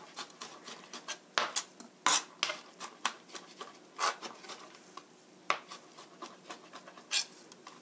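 Kitchen knife mincing garlic on a cutting board: irregular sharp taps of the blade on the board, a handful of louder chops among lighter ones.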